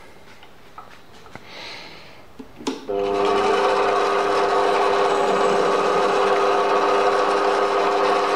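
Metal lathe switched on a few light clicks in; just under three seconds in its motor and drive start suddenly and run steadily with a whine of several held tones.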